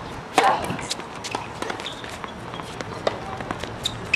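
Tennis rally on a hard court: a serve struck hard about half a second in, then ball bounces, the return hit from the far side, and quick footsteps with short shoe squeaks as the player runs in. Another racket strike lands right at the end.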